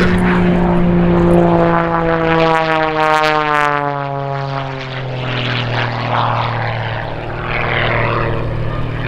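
Pitts aerobatic biplane's piston engine and propeller at high power on a low, fast pass: the engine note drops steadily in pitch as the plane goes by, then settles into a steady lower drone as it pulls up and climbs away.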